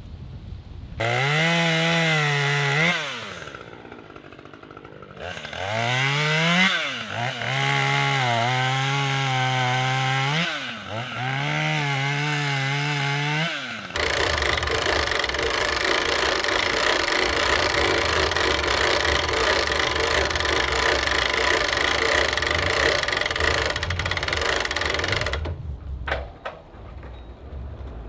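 An engine revving up and down four times, each rev rising in pitch, holding, then dropping away. About fourteen seconds in it gives way to a steadier, rougher running noise that stops a few seconds before the end.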